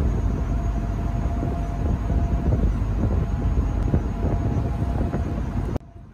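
Uneven low rumble of wind on the microphone over a ferry's engine noise, with a faint steady hum. It cuts off abruptly near the end.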